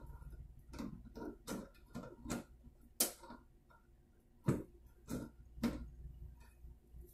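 Tongue-and-groove pliers clicking on a brass toilet spud nut as it is tightened in short turns: about nine sharp metal clicks at irregular intervals, the loudest about three and four and a half seconds in.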